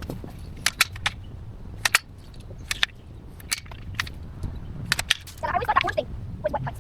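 Tree branches being clipped by hand: a run of about a dozen sharp, short snaps at irregular intervals, some in quick pairs.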